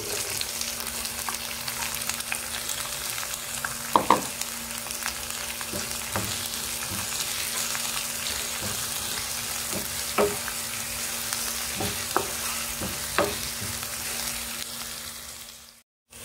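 Chopped onion, ginger, garlic and green chilli sizzling in hot oil in a nonstick frying pan, sautéing. A wooden spatula stirs them, knocking against the pan a few times. The sound drops out for a moment near the end.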